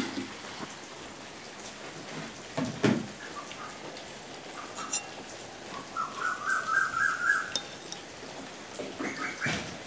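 Steady rain, with a bird giving a quick run of high chirps about six seconds in. Two sharp knocks, one about three seconds in and one near the end, are the loudest sounds.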